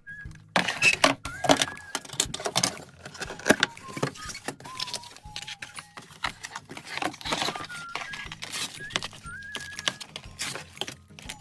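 Small objects being handled, with a quick run of clicks, taps and rustles, over soft background music with a simple high melody.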